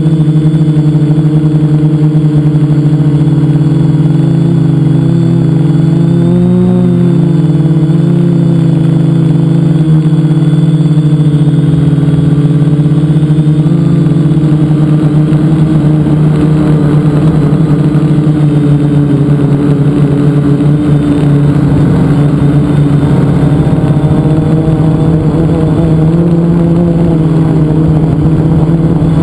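Electric motors and spinning propellers of a multicopter heard from a camera mounted on it: a loud, steady buzzing hum whose pitch wavers briefly about six to seven seconds in.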